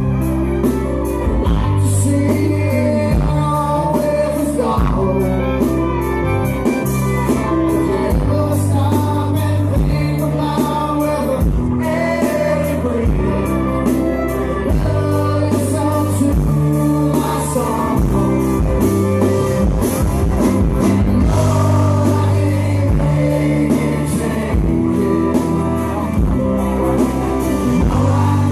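Live southern rock band playing: acoustic and electric guitars, bass and drums, with a lead vocal singing over them.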